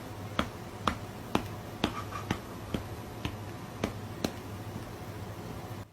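A run of sharp, snap-like clicks at about two a second over a steady low hum; the clicks stop a little past four seconds in, and the hum ends with the window.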